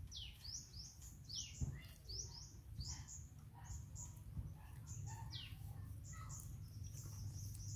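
Small birds chirping: a quick run of high chirps that slide downward, a few sweeping lower, with a thin steady high tone joining near the end.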